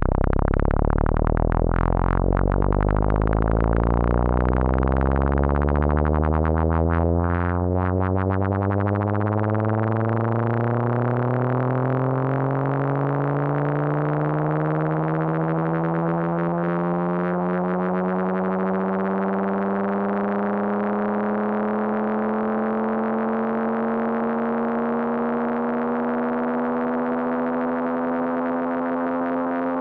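Race car engine sound effect with a synthetic, pure-toned timbre: one steady tone with evenly spaced harmonics, its pitch climbing slowly and smoothly as if the engine were building revs.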